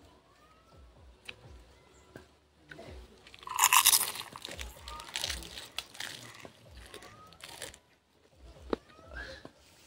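Someone biting into a bunch of fresh raw green leaves held right at the mouth, loudest about three and a half seconds in. Several seconds of crunchy chewing of the leaves follow.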